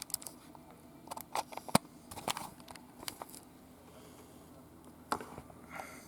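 Handling noise: a run of sharp clicks and taps from small hard objects, the loudest just before two seconds in, another pair about five seconds in, and a soft rustle near the end.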